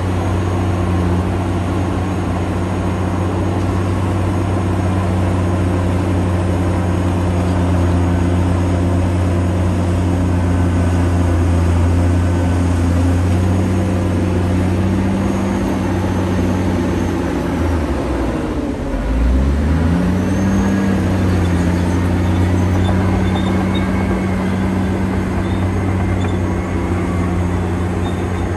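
Caterpillar D9T bulldozer's diesel engine running hard with a steady, deep note. About two-thirds of the way through, the engine note drops sharply and climbs back up within about a second and a half.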